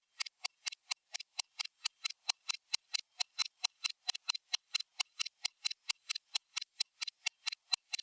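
Stopwatch tick sound effect: crisp, bright ticks in an even, fast rhythm of about five a second.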